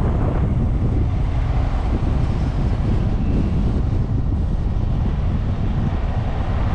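Wind buffeting the microphone: a steady, heavy low rumble with nothing else standing out.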